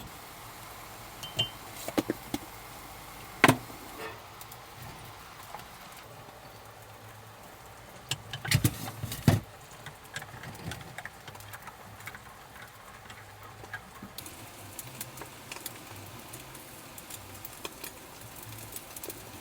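A few sharp knocks and clatters, the loudest cluster about halfway through, followed by scattered light ticks, over a steady background hiss.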